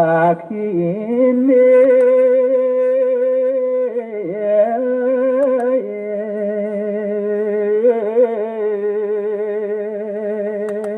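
A solo voice singing a slow chant-like melody of long held notes with a wavering vibrato, the pitch shifting only a few times, played through an old TOA horn loudspeaker.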